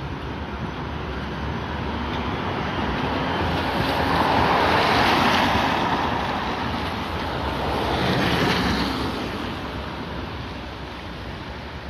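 A tram and other traffic passing on a rain-wet street, with a rushing hiss that swells twice, about halfway through and again a few seconds later, then fades.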